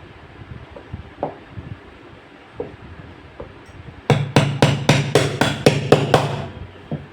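Hammering: a few scattered light knocks, then a quick run of about ten sharp blows, roughly four a second, with a low hum under them.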